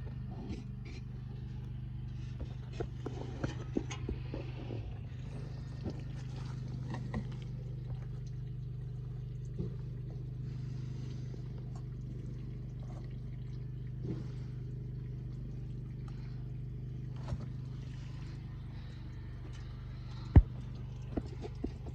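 Vintage International truck's V304 V8 engine running at a steady idle, with scattered light clicks and taps of work on it and one sharp knock near the end.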